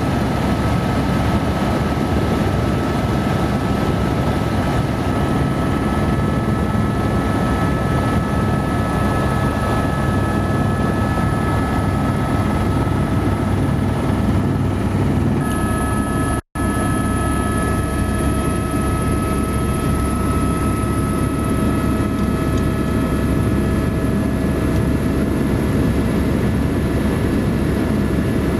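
Helicopter cabin noise in flight: a loud, steady drone of rotor and turbine with a few steady whining tones above it. It cuts out for an instant about sixteen seconds in, then carries on unchanged.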